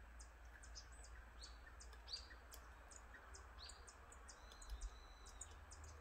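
Birds calling faintly in woodland: a scatter of short, high-pitched chirps and ticks with a few longer call notes, one held steady for under a second about four and a half seconds in, over a low steady rumble.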